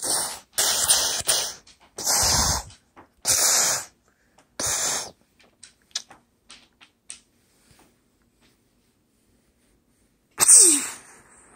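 A child making breathy explosion and gunfire noises with the mouth during toy-soldier battle play: five short bursts in the first five seconds and one more near the end. Between them come a few light clicks of plastic figures on the wooden floor.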